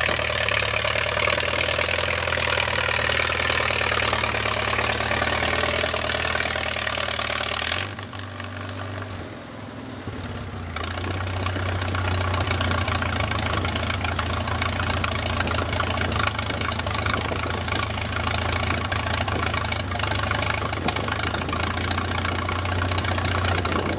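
Farmall 300 tractor engine working while pulling a disc harrow, then dropping back about eight seconds in and settling into a steady idle.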